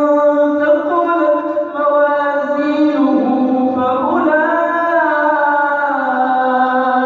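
A man reciting the Qur'an in melodic tajweed style, drawing out long held notes. The pitch steps between notes, rises about four seconds in, then sinks slowly.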